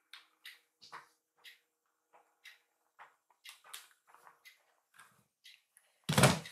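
A kitten scratching and pawing in cat litter: short scratchy rustles about twice a second. Near the end comes a single loud thump as a second kitten pounces in and lands.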